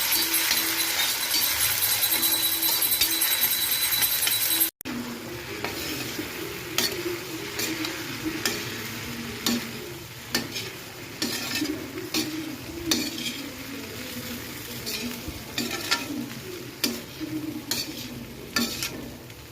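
Food frying in hot oil in a pan, a loud steady sizzle that cuts off suddenly about five seconds in. Then a spoon stirring and scraping in the pan, with irregular clicks against the metal.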